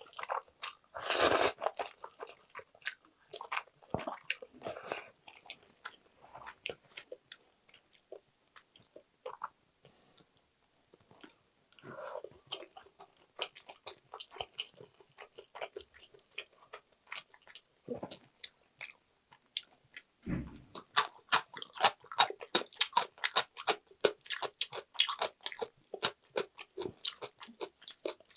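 Close-miked eating of chewy jjolmyeon noodles: a loud slurp about a second in, then chewing with wet mouth clicks. A dull low thump comes about two-thirds through, and the chewing clicks grow dense near the end.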